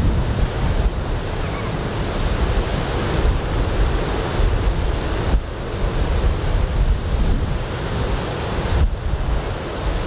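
Ocean surf breaking on the beach under a typhoon swell: a continuous wash of waves, with wind rumbling on the microphone.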